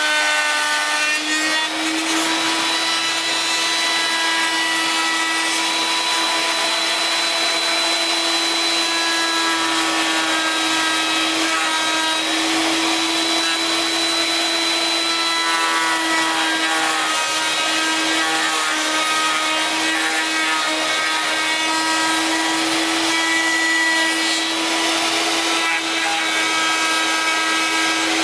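Router mounted upside down under a router table, running at a steady high-pitched whine while a wooden strip is fed past its two-knife cutter, the wood being cut with a rasping noise.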